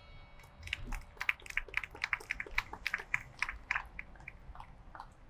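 A quick, irregular run of light, sharp clicks or taps, about four a second, stopping about four and a half seconds in. Under them, the faint ring of a bell struck just before dies away.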